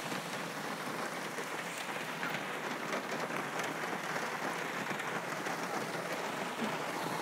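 Steady summer rain falling on the car and the grass beside it.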